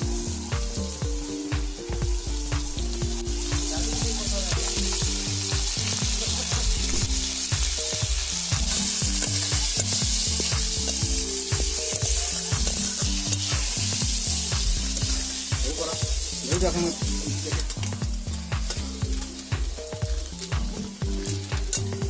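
Fish pieces sizzling as they fry in oil in a wok, with a spatula stirring and scraping against the pan. The sizzle is strongest through the middle.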